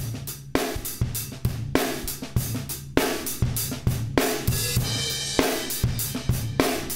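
Recorded drum kit (kick, snare, hi-hat and cymbals) playing back through the Waves SSL E-Channel plugin's compressor, which is set to a fast attack that squashes the hits hard. A cymbal crash rings out about four seconds in.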